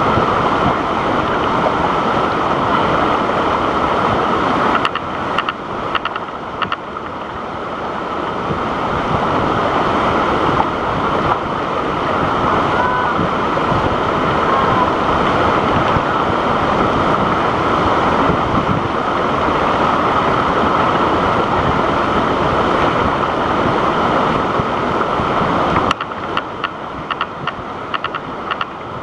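Waterfall rushing, a loud steady roar of falling water that dips briefly twice.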